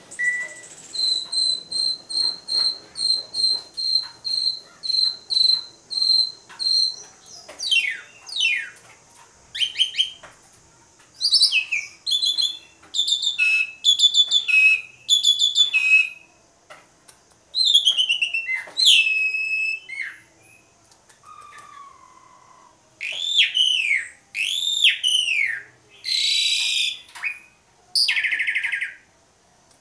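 Asian pied starling (jalak suren) singing a long, varied song. It opens with about a dozen evenly spaced high piping notes, two a second, then runs into sweeping whistles, rising-and-falling slurs and harsh rasping notes with short pauses between phrases.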